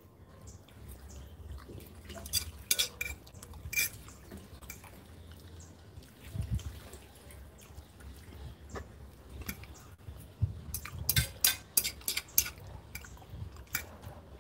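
Metal forks clinking and scraping against dinner plates as people eat: a few sharp clinks about two to four seconds in, then a quicker run of clinks after about ten seconds. A dull low thud about halfway through.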